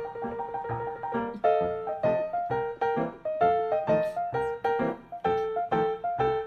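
Background piano music: a melody of quick, evenly paced notes.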